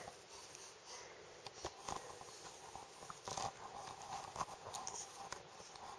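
Quiet, with faint, irregular soft knocks and clicks and small sounds from a 10-week-old baby with hiccups as she is handled and laid down.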